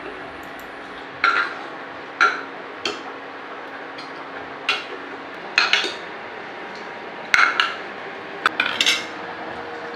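Metal ladle stirring pumpkin curry in a metal pot, clinking sharply against the pot's side and rim every second or so, sometimes twice in quick succession. Underneath is a steady hiss with a faint hum.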